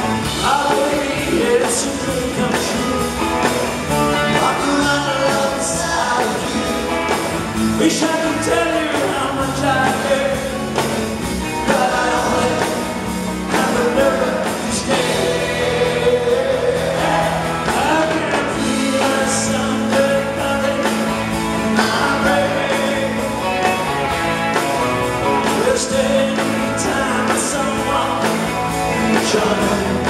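Live band music: a male lead singer over a 12-string electric guitar and bass in a 1960s-style pop-rock song.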